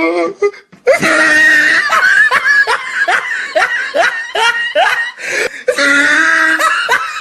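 Loud, hearty laughter: a quick run of short rising 'ha' bursts, about three a second, breaking off briefly about five seconds in, then going on with a longer held note.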